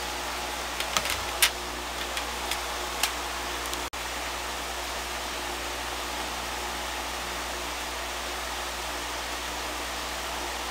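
Steady hiss of background noise with a low hum beneath it, broken by several sharp clicks in the first three seconds and a brief dropout about four seconds in.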